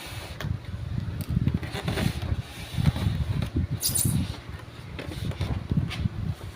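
Handling noise: irregular low bumps and rustling with scattered clicks, and a brief high crinkle about four seconds in, as of packaging being handled close to the microphone.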